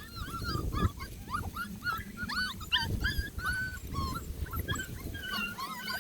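Tiny beagle puppies whimpering and yipping: many short, high squeaks, one after another and overlapping, throughout.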